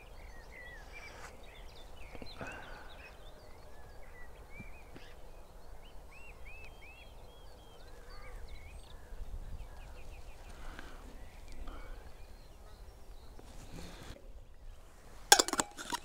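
Small birds singing and calling, many short arched chirps scattered throughout. A little before the end, a few loud knocks and rustles of the camera being handled.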